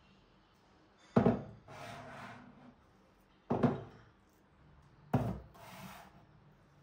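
Kitchen things being set down on a hard surface and slid into place, three times about two seconds apart: each a sharp knock followed by a short rubbing scrape.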